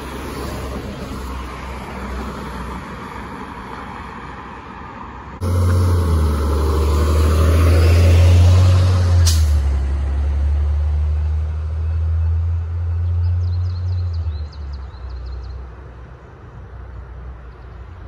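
Street traffic, then about five seconds in a heavy engine starts up close by with a loud, steady low drone lasting about nine seconds before it fades back to passing cars.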